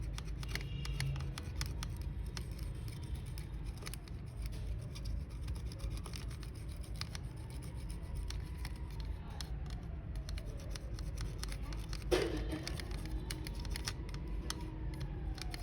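Small clicks and light scratching of hands working on a wireless gaming mouse's small plastic parts, with one sharper click near the end. A steady low hum and a faint tone slowly rising and falling sit underneath.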